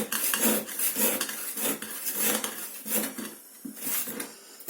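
Hand wood saw cutting into a solid frozen block of food: irregular scraping saw strokes with knocks and clatter, briefly easing off about three and a half seconds in.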